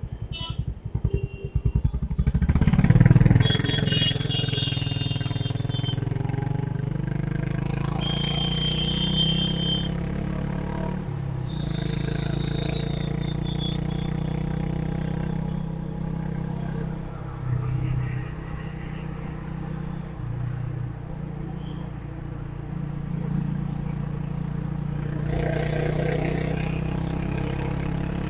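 Honda H'ness CB350's single-cylinder engine. It starts with slow, separate firing pulses, revs up to a peak about three seconds in, then runs steadily at riding speed.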